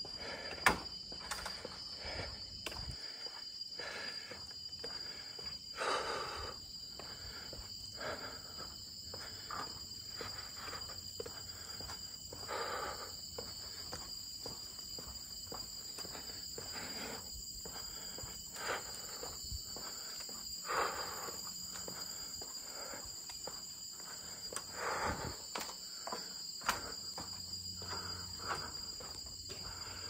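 Footsteps walking along a forest path, a step about every half second to second with a few heavier ones, over a steady high-pitched drone of several insects calling on fixed pitches.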